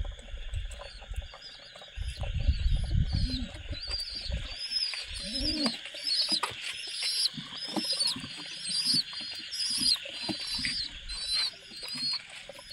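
Pigeons feeding on grain, with low scuffling and wing flutters. Over this runs a steady high insect drone and a regular string of short high chirps about every two-thirds of a second.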